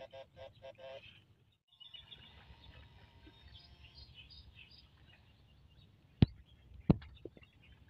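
Marsh ambience with faint bird chirps, opening with a quick run of rapid, evenly spaced pulses that stops about a second in. Two sharp loud clicks come about six and seven seconds in.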